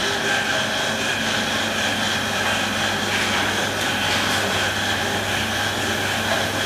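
Swiss FAG proof press running: a steady mechanical hum with a few faint clicks.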